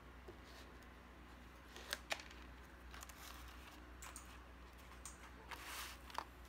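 Faint clicks and rustles of hands laying seed-bead bracelets down on a sheet of paper, with two sharper clicks about two seconds in and a short rustle near the end, over a low steady hum.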